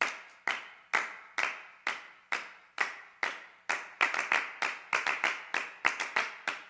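Rhythmic hand claps, evenly spaced at about two a second, each with a short ringing tail; about four seconds in, extra claps fill in between the beats to make a busier pattern.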